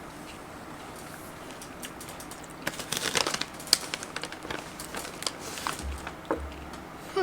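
Freeze-dried caramel M&M's crunching while being chewed: a dense run of crisp crackles about three seconds in, then scattered smaller crackles.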